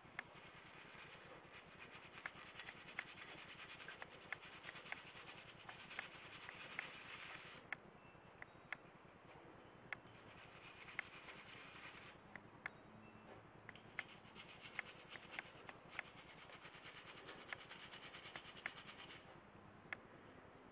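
A small stiff-bristled brush scrubbing dirt and gunk off a copper contact piece from a service fuse block, in three long stretches of brisk rubbing with short pauses between them. Scattered light clicks come through the whole time.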